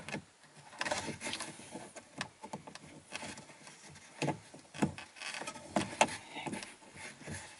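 Plastic interior dome-light lens and housing being handled: a few scattered sharp clicks and light rubbing of plastic.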